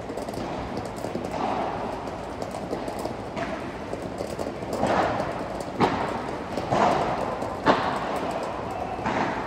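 Padel ball struck by solid paddles and bouncing on the court during a serve and rally: a series of sharp pops roughly a second apart, echoing in an enclosed hall, the loudest just before the end.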